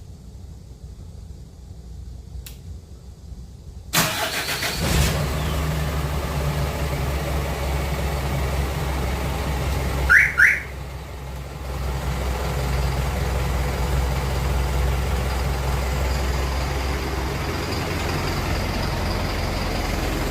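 Hyundai All New Mighty truck's diesel engine starting about four seconds in, then idling steadily. About six seconds later two short rising electronic chirps sound over it.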